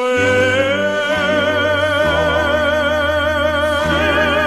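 A song: a singer holds one long note with wide vibrato over sustained low accompaniment chords, which change about two seconds in.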